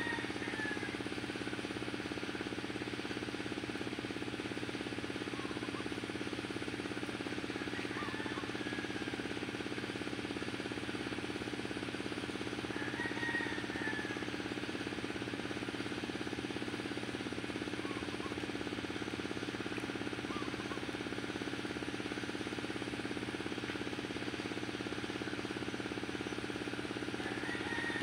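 An engine running steadily at constant speed, an unchanging drone, with a few faint short high chirps now and then.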